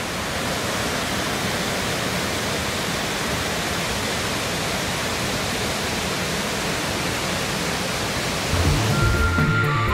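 Steady rushing of Wallace Falls, a tall waterfall. Background music with a repeating beat comes in near the end.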